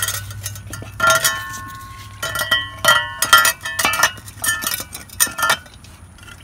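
Loose steel bolts and metal water-pump parts clinking and ringing against each other and the concrete, about a dozen sharp metallic clinks with short ringing tails. A low hum cuts off about a second in.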